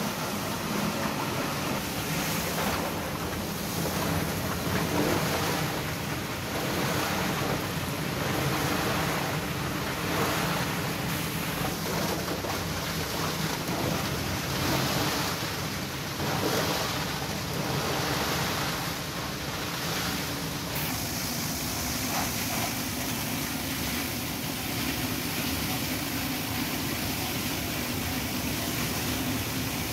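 PET bottle crushing machinery running: a steady rushing, grinding noise from a wet plastic-bottle crusher fed with bottles and water, and a screw conveyor churning crushed flakes through water. The noise swells and eases every second or two, then evens out in the last third.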